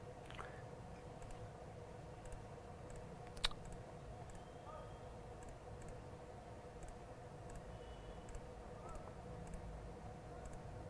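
Faint scattered clicks of computer controls, with one sharper click about three and a half seconds in, over a steady low hum.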